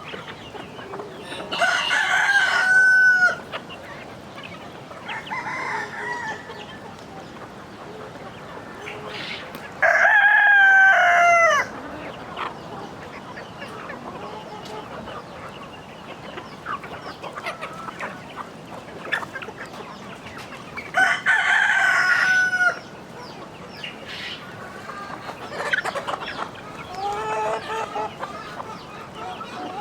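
Rooster crowing three times, each crow just under two seconds long, roughly ten seconds apart. Chickens cluck quietly in between.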